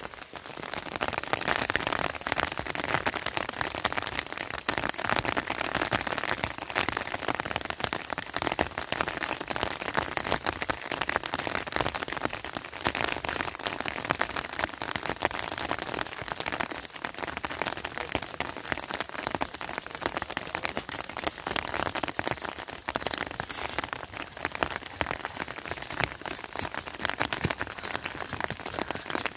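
Steady rain falling on the ground, a dense, even patter of drops that keeps on without a break.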